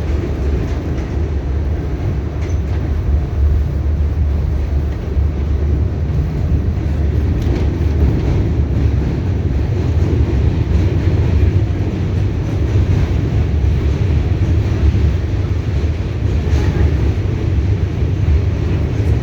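R68A subway train running at speed, heard from inside the car: a steady, loud low rumble of wheels on rails, with a few faint clicks.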